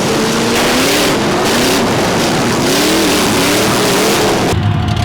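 Demolition derby car engines revving hard, their pitch rising and falling over a loud, noisy din. About four and a half seconds in it cuts to a lower, steadier engine sound.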